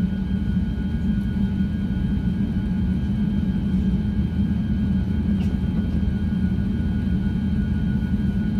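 Steady cabin rumble inside an Airbus A350-900 on the ground before takeoff, its engines at low power, with a faint steady whine over a low hum.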